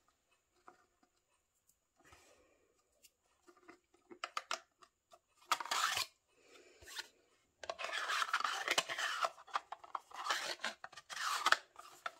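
Plastic stackable diamond painting drill tray being slid apart and pushed back together: small clicks, then several rasping scrapes of plastic on plastic, the longest and loudest in the second half.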